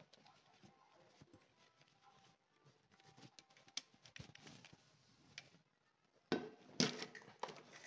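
Faint rustling of a fabric carry bag and small clicks and knocks as an aluminium tripod is drawn out of it, with louder handling noise and sharp clicks from about six seconds in.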